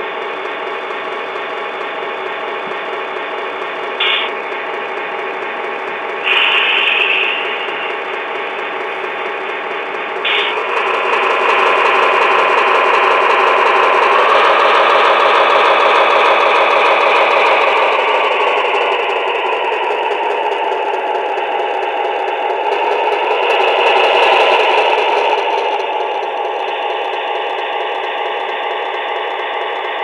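QSI Quantum sound decoder in an HO-scale Atlas Fairbanks-Morse Train Master playing diesel engine sound through the model's small speaker as the locomotive runs. A steady engine drone, with a few brief sharper sounds in the first ten seconds. The revs rise from about ten seconds in, ease back down past the middle, and pick up again briefly near the end.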